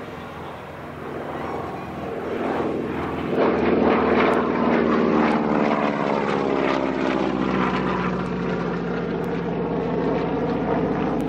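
Radial engine and propeller of a vintage high-wing monoplane flying past low. The drone grows louder to a peak about four seconds in, and its pitch drops as the plane goes by, then it carries on steadily as the plane moves away.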